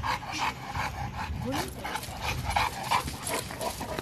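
A dog panting in quick, short breaths.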